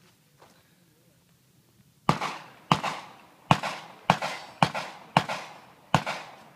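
Seven single gunshots, fired one at a time about half a second to under a second apart, each with a short echo.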